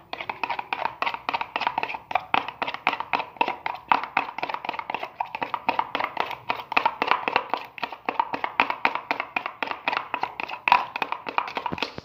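A spoon beating egg with salt and a little flour in a plastic jug: rapid, steady tapping against the jug's sides, several strokes a second.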